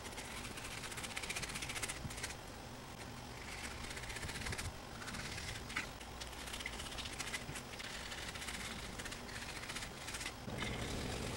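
Faint, irregular scraping of a knife blade held flat, slicing bell pepper flesh away from the skin against a wooden cutting board, over a low steady hum.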